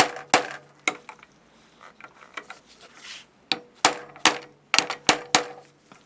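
Hammer striking a socket, metal on metal with a short ring, driving a speed nut's tabs down over the post of a slit lamp's plastic chinrest cup. Three quick blows, a pause of about two and a half seconds with small clicks, then six more blows in quick succession.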